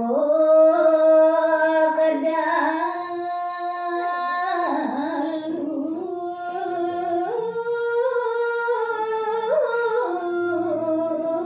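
A woman singing a Balinese geguritan verse unaccompanied into a microphone, in a sinom tune: long held notes that step up and down between pitches, with slow ornamented turns.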